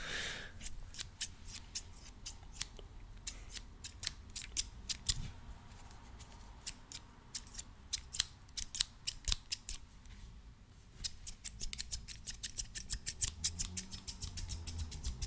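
Scissors snipping close to the microphone, blades opening and closing in crisp clicks. The snips are spaced out at first, then come in a quick run from about two-thirds of the way through.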